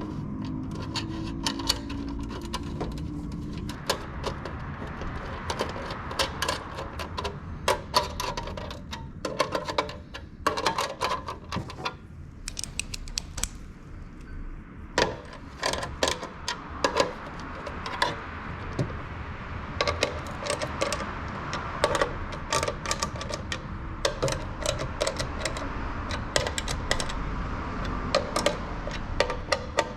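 Irregular sharp clicks and light rattling of small hard parts being handled, with many clicks close together at times.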